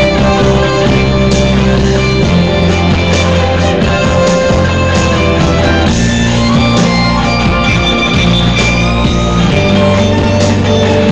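A rock jam with guitar: loud, sustained chords over a bass line that changes note every two seconds or so.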